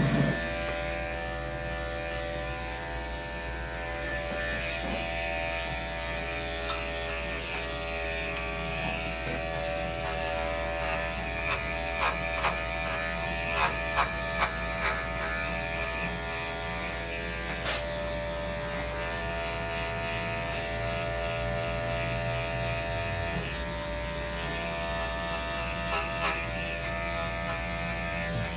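Electric dog-grooming clipper running with a steady buzzing hum as it cuts through the dog's coat. A handful of sharp clicks come around the middle, with a couple more later.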